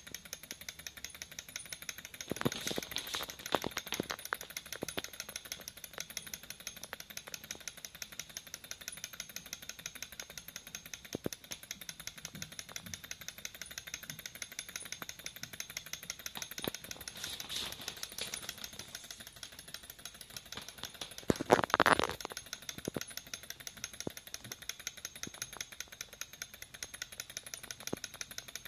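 Small Stirling (hot-air) engine on an acrylic tank model running and driving the model along: a rapid, even mechanical ticking from its moving parts and tracks, with a louder clatter about three quarters of the way through.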